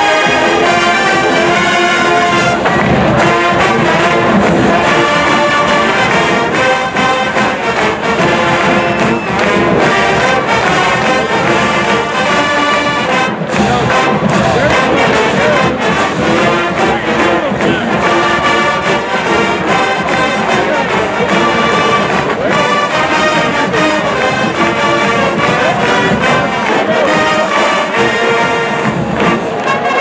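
Marching band playing loudly: a brass section of trumpets and sousaphones over a drumline of snare drums, bass drums and cymbals.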